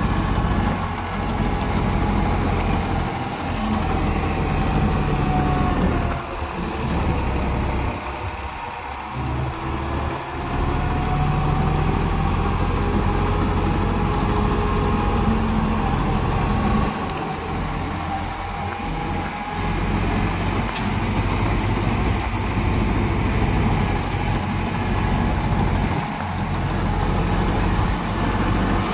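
A New Holland 3630 three-cylinder diesel tractor runs steadily under load while driving a PTO straw reaper through wheat stubble. The reaper adds a whining tone above the engine. The whine and the overall level sag for a few seconds about a quarter of the way in, then recover, as the load on the machine changes.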